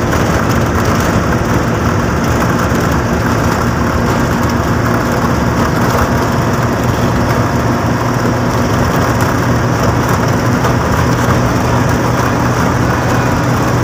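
A bus's engine running at speed, with a steady low hum under continuous road and wind noise.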